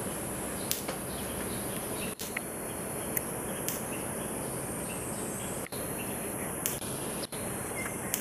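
Steady high-pitched insect drone, with a few brief sharp ticks over it.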